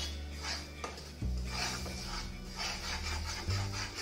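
Spatula scraping around a nonstick kadhai in repeated strokes, stirring melting jaggery. The strokes come faster in the second half, over background music with low sustained notes.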